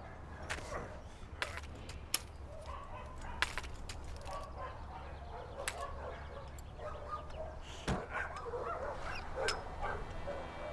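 Dogs barking and yelping in the background, short scattered calls, with several sharp clicks and knocks and a steady low hum.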